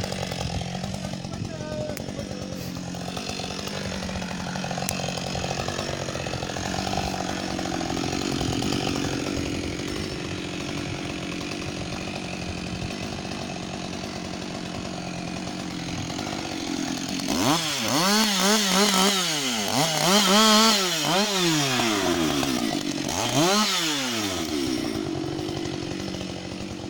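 Husqvarna 560 XP two-stroke chainsaw running steadily at idle, then revved up and down several times from about two-thirds of the way in, its pitch rising and falling, before dropping back to idle near the end.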